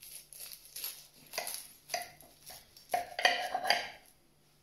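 Chef's knife slicing through a baked flaky puff-pastry pie crust, the pastry crackling and crunching in irregular bursts, with the blade scraping on the ceramic plate. The loudest crunching comes a little after three seconds in.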